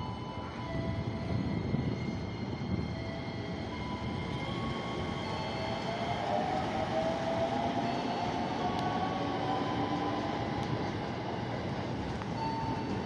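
Electric commuter train rolling into a station with a steady rumble, while thin metallic squeals come and go over it; the loudest squeal rises in pitch about six seconds in.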